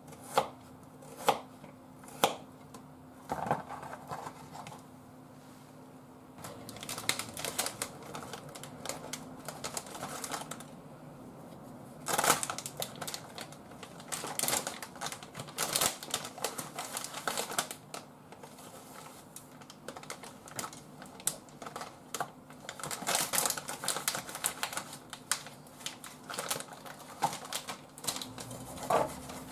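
A few knife chops on a cutting board at the start, three sharp knocks about a second apart. Then a plastic bag of dried seaweed crinkling and rustling in uneven bursts as the strands are pulled and shaken out onto the board.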